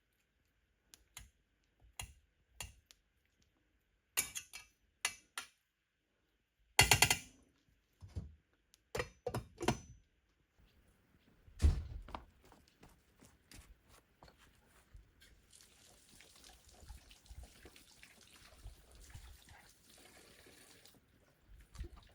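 A series of sharp knocks and clicks of objects being handled, loudest about seven seconds in, then a heavy thunk, followed by water running for about five seconds near the end.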